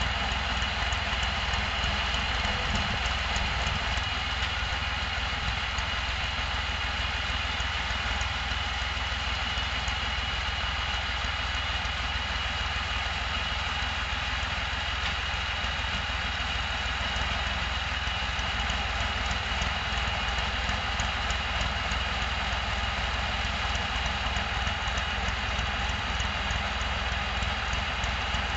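Tractor engine running steadily, with a thin high whine held over it.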